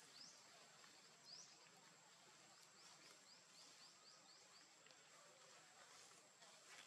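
Near silence: faint forest ambience with short, high rising chirps, one near the start, one a little over a second in and a quick run of about two a second in the middle, over a thin steady high whine.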